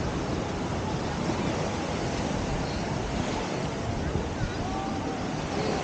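Small surf breaking and washing up on a sandy beach, with wind on the microphone.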